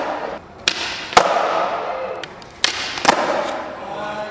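Skateboard rolling on a smooth concrete floor with four sharp wooden clacks in two pairs about half a second apart, the tail popping and the board landing back on the ground, the second clack the loudest.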